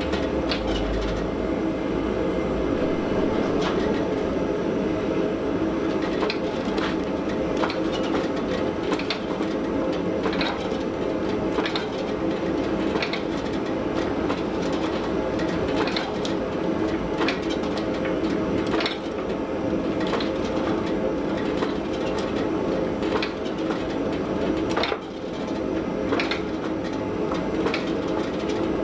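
Steel being hand-forged: hammer blows landing irregularly, about one to two a second, over a steady forge roar.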